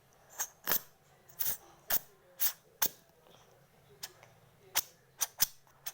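Sharp plastic clicks and snaps, about a dozen at irregular intervals: the cap of a plastic glue bottle being worked at by hand, still not opening.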